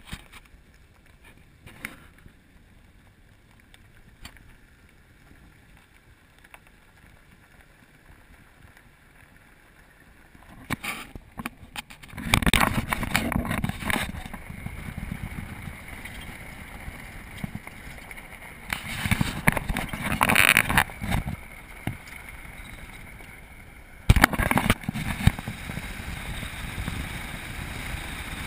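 4x4 vehicle driving off-road, heard from inside the cab. It is faint for the first ten seconds or so, then loud and noisy from about twelve seconds in, with louder surges around twenty and twenty-four seconds.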